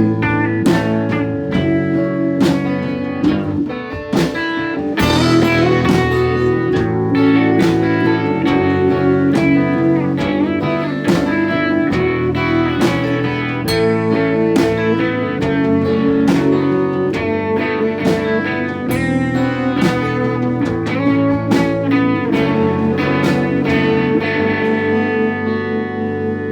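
Live band playing an instrumental stretch of a song, guitar to the fore over a steady beat.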